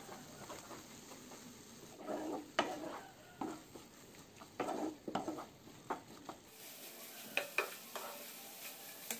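Wooden spatula stirring and scraping beaten eggs and cauliflower around a nonstick frying pan, in irregular strokes, over a faint sizzle as the eggs scramble and set.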